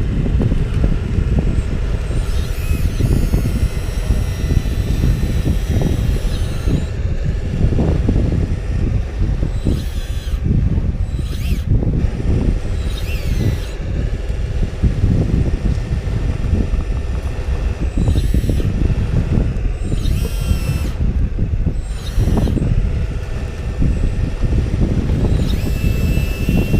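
Small electric motors and gear drives of a homemade radio-controlled backhoe loader whining, rising and falling in pitch in short spells as it works, over a heavy low rumble.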